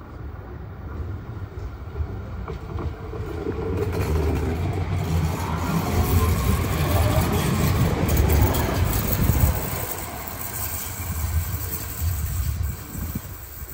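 A tram passing close by, its wheels rumbling on the rails; the sound builds for a few seconds, is loudest around the middle, then fades as it moves away.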